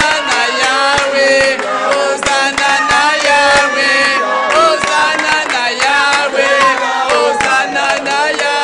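A crowd of people singing a chant-like hymn together, with hand-clapping.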